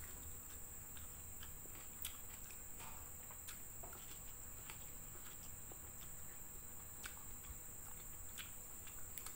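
Faint eating sounds: scattered short clicks and smacks of hand-fed chewing, over a steady high-pitched hiss.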